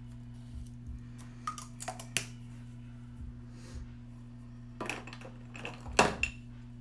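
Light clicks and clacks of small hard objects being handled: a few scattered taps about a second and a half in, then a cluster ending in a louder clack near the end, over a steady low hum.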